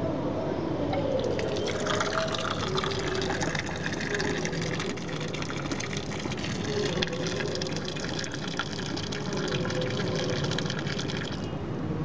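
Water gushing from the opened drain valve of a solar water heater tank and splashing onto concrete: a steady rushing hiss that starts a second or two in and cuts off suddenly near the end.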